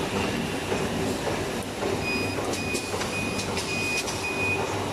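HIGH SEA HSDP-400 automatic bag-on-roll making machine running, with a steady mechanical hum and clatter. About two seconds in, a row of five short high beeps sounds, evenly spaced.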